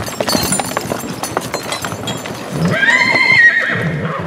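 A horse whinnies once, for about a second, starting past the middle, with a wavering, quavering pitch. Around it are repeated sharp clacks of hooves.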